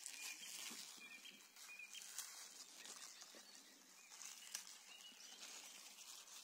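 Near silence: faint garden ambience with a few short, high chirps of distant birds and soft rustling of green onion stalks being handled.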